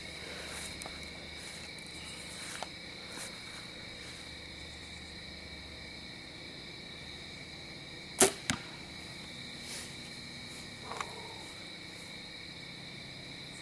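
A Mathews Halon compound bow is shot: a sharp snap as the string is released, then about a third of a second later a thud as the arrow strikes the foam target. Crickets keep up a steady high chirring underneath.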